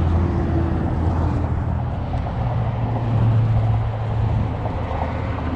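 A distant engine's steady low drone, rising slightly in pitch about halfway through, over outdoor background noise.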